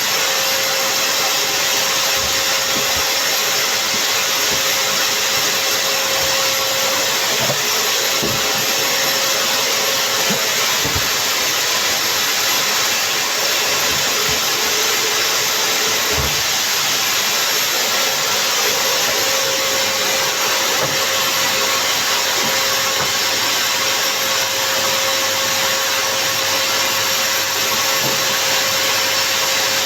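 Samsung vacuum cleaner running steadily: a constant loud rushing noise with a thin steady hum in it, and a few short low knocks here and there.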